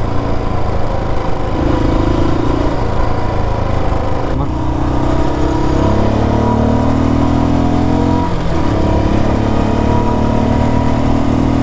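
Royal Enfield Bullet 350's single-cylinder engine running under way and accelerating. Its note climbs in pitch in long stretches, with a brief break about eight seconds in before it climbs again.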